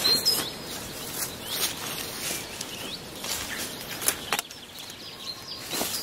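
Long willow rods rustling, scraping and knocking as they are pulled and woven through a wattle fence, with a few short bird chirps now and then.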